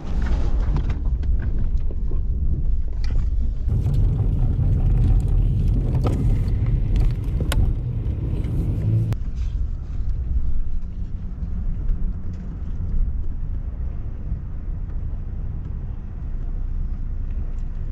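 Pickup truck running with a steady low rumble, with a few sharp clicks and knocks in the first half.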